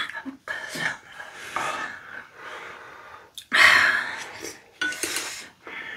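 Eating sounds over spicy tteokbokki: hard breathing and slurping, with chopsticks clinking on bowls. The loudest is one noisy slurp-like intake about three and a half seconds in, as a mouthful of rice cake goes in.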